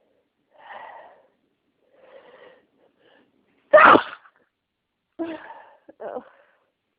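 A person sneezing from an allergic reaction. Two soft gasping breaths build up, then one loud sneeze comes about four seconds in, followed by two shorter, quieter bursts.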